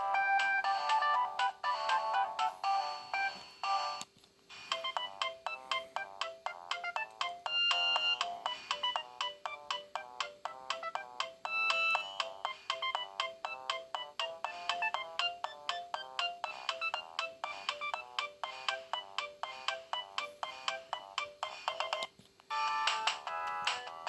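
Siemens A51 mobile phone ringtones playing one after another. One melody ends about four seconds in, and after a short pause a new tune of quick, short notes plays until about two seconds before the end, when the next ringtone starts.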